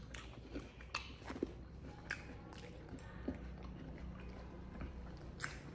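A baby macaque chewing candied fruit: soft, scattered wet clicks and smacks about a second apart, against a faint low hum.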